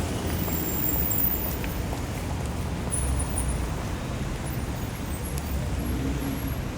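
Steady rumble of dense city street traffic: engines running and tyres on asphalt, with faint high squeaks now and then.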